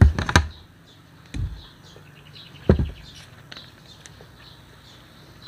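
Spoon and fork clinking and knocking against an aluminium foil food tray: a quick cluster of sharp clinks at the start, then two dull knocks about 1.4 and 2.7 seconds in.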